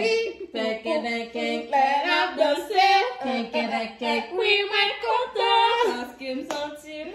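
Women singing together without accompaniment, a voiced chant-like tune.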